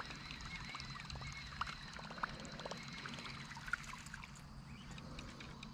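Faint water sounds on a calm lake, light trickling and splashing, over a low steady hum, with a few soft clicks.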